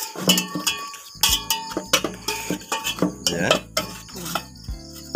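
Metal spoon scraping and clinking against a metal pot while scooping out cooked shawarma meat: a run of irregular scrapes and knocks.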